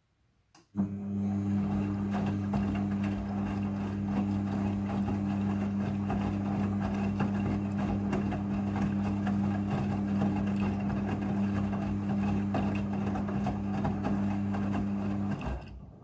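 Midea front-loading washing machine turning its drum on the rinse cycle. A click about half a second in, then a steady motor hum over the wet laundry tumbling in the drum. It stops shortly before the end.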